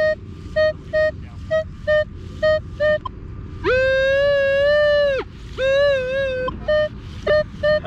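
Minelab Equinox metal detector beeping on a buried target: repeated short mid-pitched beeps, about two a second. A little past a third of the way in, a longer, louder held tone breaks in, then a shorter wavering one, before the beeps resume.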